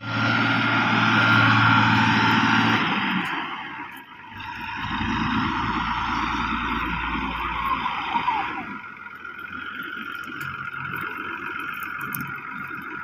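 A motor vehicle running, with steady engine and road noise and a deeper rumble for a few seconds in the middle.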